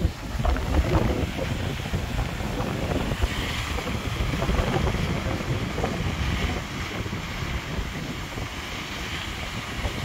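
Wind buffeting the microphone over the steady rush of a waterfall.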